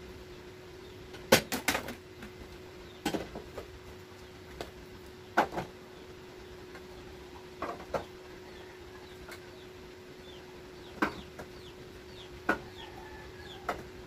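Tin cans and bottles knocking and clinking as they are handled and set down on a metal shelf, in irregular single knocks with a quick cluster near the start. Under them runs a steady hum, with faint bird chirps in the background.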